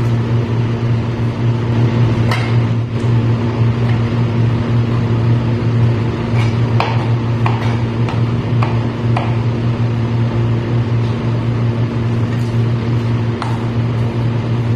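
Knife tapping down on a cutting board as yardlong beans are cut, about ten scattered short taps, over a loud steady low hum.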